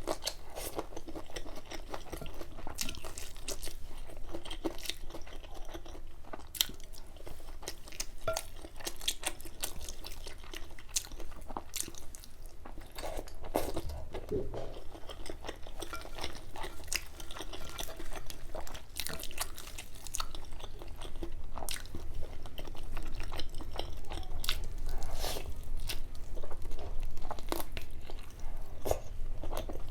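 A person chewing and biting food close to the microphone, with many small sharp crunchy clicks; the eating grows louder in the last few seconds.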